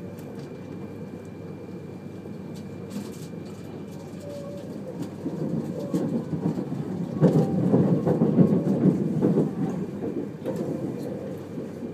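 Cabin noise of a 200 series Shinkansen heard from inside the passenger car: a steady low rumble of the wheels on the rails. It grows louder with clattering from about five seconds in, is loudest around eight seconds, then eases.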